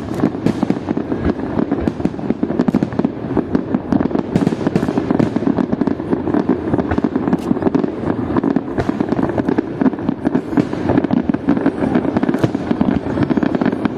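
Fireworks display going off in a dense, unbroken run of bangs and crackles.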